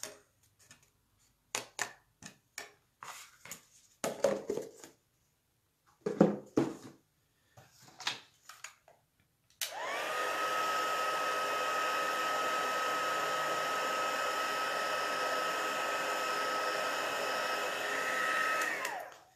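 Scattered light clicks and taps of handling, then about ten seconds in a handheld craft heat gun is switched on. It runs with a steady whir and whine for about nine seconds, melting embossing powder on a cardstock tag, then winds down as it is switched off.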